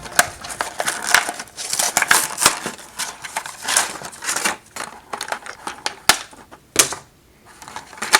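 A toy's cardboard and plastic packaging being opened by hand: irregular clicks, snaps and crackles, with two sharper snaps near the end.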